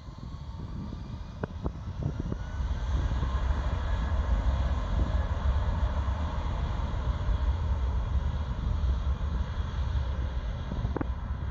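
Jet airliner's engines spooling up on the runway: a whining tone rises in pitch over the first few seconds under a deep, steady rumble that swells and then holds loud.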